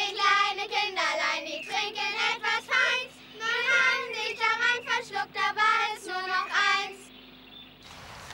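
Children singing a short song in phrases, stopping about seven seconds in.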